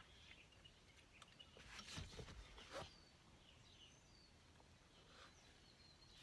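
Near silence, with a few faint clicks and scrapes about two to three seconds in from needle-nose pliers working a cable into a van's sliding-door lock assembly. A few faint, high bird chirps follow.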